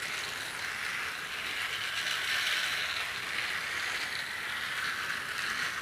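Battery-powered toy train running on its plastic track: a steady whirr of the small electric motor and plastic gears.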